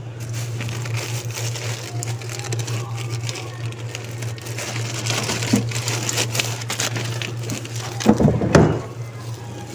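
Plastic bags crinkling and rustling as a hand rummages in a wooden drawer, with a couple of louder knocks about eight seconds in, over a steady low hum.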